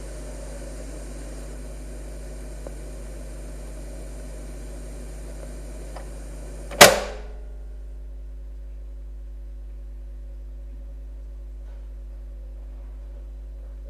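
Steady hiss and low hum of an old recording of a radio broadcast, then one sharp click about seven seconds in, after which the hiss cuts out and only the low hum remains.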